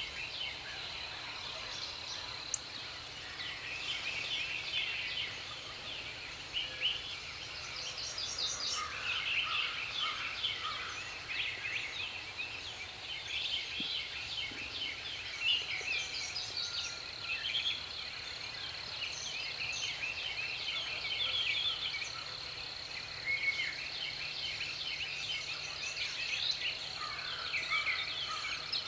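Outdoor chorus of songbirds chirping and singing, with many overlapping short calls and song phrases throughout, over a steady thin high-pitched tone.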